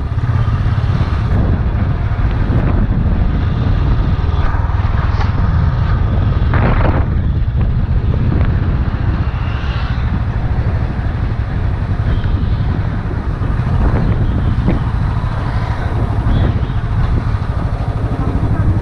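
Motorcycle engine running steadily as the bike rides slowly along a road, a constant low rumble mixed with wind buffeting the microphone.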